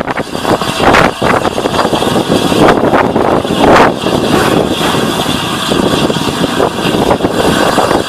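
LNER A3 Pacific 'Flying Scotsman', a three-cylinder steam locomotive, pulling away slowly, heard close up from on board: loud exhaust beats and steam noise, uneven, with the strongest surges about a second in and again between three and four seconds.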